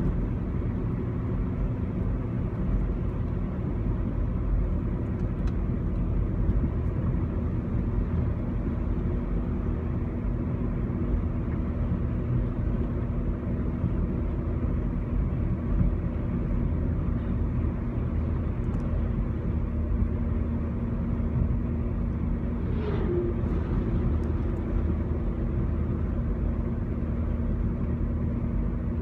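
Steady low rumble of a car in motion, with an even hum underneath.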